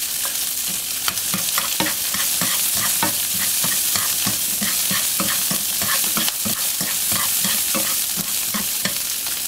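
Sliced onion, minced garlic and scallion sizzling in hot oil in a frying pan, stirred with chopsticks that tap and scrape against the pan over and over.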